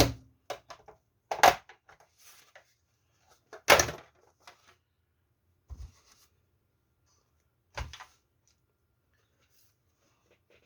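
Plastic cover of a Samsung One Connect box being opened fully and handled after its clips are released: a handful of separate knocks and clicks, the loudest about a second and a half and nearly four seconds in, and quieter ones near six and eight seconds.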